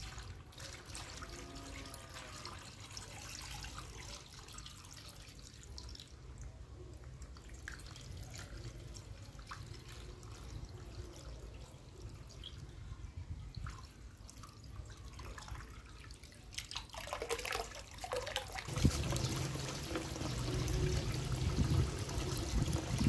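Water poured from a plastic jug into a stone bowl, trickling and dripping. Near the end a louder stream of water spills over into a larger basin and splashes.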